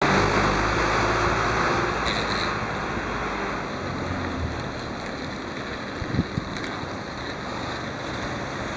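Steady rushing background noise, like wind on the microphone or distant traffic. It is louder for the first two or three seconds, and there is a brief low thump about six seconds in.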